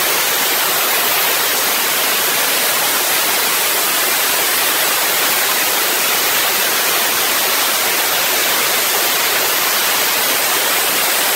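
Dry-ice blasting nozzle running continuously with a loud, steady hiss as it blasts dirt off the chain and spindle carriers of an auto paint-line conveyor.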